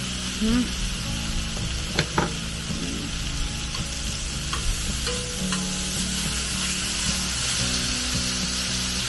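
Pieces of meat sizzling steadily on a hot griddle pan. A few sharp clicks come from metal tongs knocking the pan as the pieces are turned, two about two seconds in and more a few seconds later.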